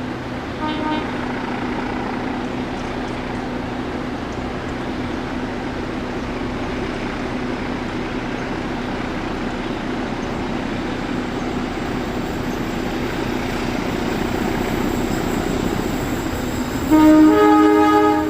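Indonesian KAI train running with a steady rumble and a steady low hum, growing slightly louder, with a short faint toot about half a second in. Near the end the locomotive's multi-tone horn, the chord railfans call "hongheng", sounds loudly, then breaks off just before the end.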